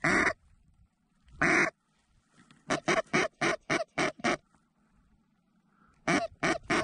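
Duck call blown in mallard hen quacks to bring birds in: two drawn-out quacks, then a quick run of about seven quacks at roughly four to five a second, and three more quacks near the end.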